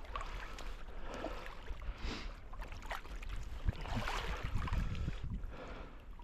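Water sloshing and knocking against a kayak hull in irregular swells, over a steady low wind rumble on the microphone.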